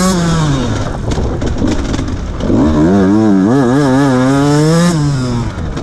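Beta 125RR two-stroke dirt bike engine revving and easing off on a woods trail. The revs drop in the first second and stay low for over a second, climb again about two and a half seconds in, waver high, and fall near the end.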